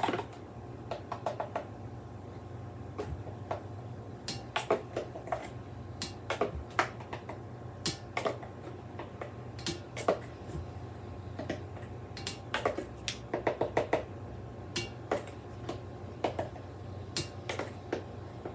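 A measuring spoon clicking and tapping against a paper bag and an enamelled saucepan as powdered brown gravy mix is scooped and tipped in, one tablespoon at a time: irregular light clicks and taps, sometimes in quick clusters, over a steady low hum.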